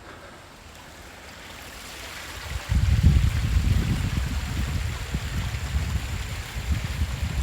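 Rushing water of a broad, low waterfall spilling over a wide rock slab, a steady hiss. About a third of the way in, wind starts buffeting the phone's microphone with a loud, gusty low rumble that stays on.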